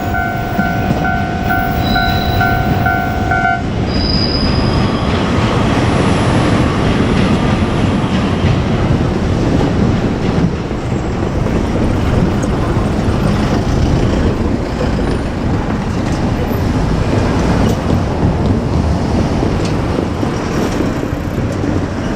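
JR Kyushu 817 series electric train running over a level crossing, with a steady rumble and clatter of its wheels on the rails. For the first few seconds the crossing's warning bell rings in a fast, pulsing two-tone ding, then stops.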